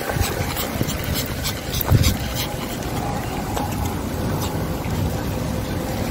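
Wind rumbling on the microphone, with faint clicks throughout and a short louder bump about two seconds in.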